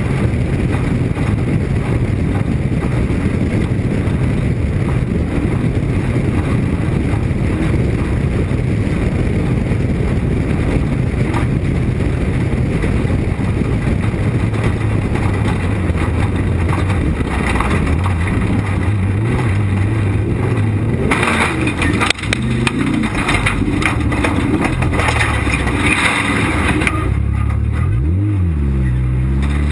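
Off-road race vehicle's engine running hard under heavy rattling and rough-terrain noise. About two-thirds of the way through there is a single sharp bang, after which the engine runs more slowly, its pitch dipping and then rising again near the end.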